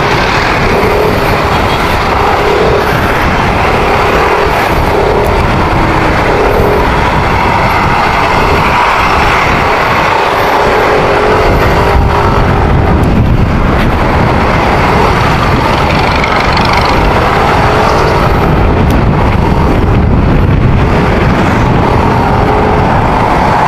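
Motorcycle on the move, picked up by a rider-mounted action camera: loud, steady wind rush over the mic, with the engine running underneath and its pitch shifting a little with the throttle.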